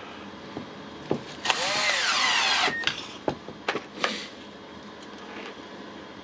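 Milwaukee impact wrench run briefly without load, its motor spinning up and winding down over about a second, as a test run after regreasing the anvil and housing to cure a bad running noise. A few short clicks of handling come before and after it.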